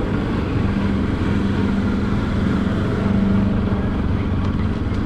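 Steady low mechanical hum with a constant low tone, over rumbling background noise.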